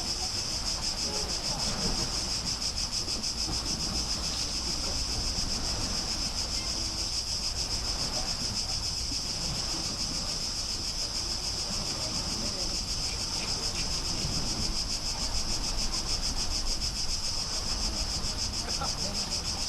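Dense insect chorus: a steady high-pitched chirring with a fast, even pulse, over a low background rumble.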